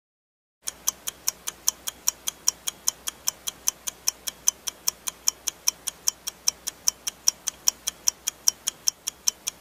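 Clock-style ticking sound effect of a countdown timer, starting just under a second in: fast, even ticks, about five a second, with alternate ticks slightly louder.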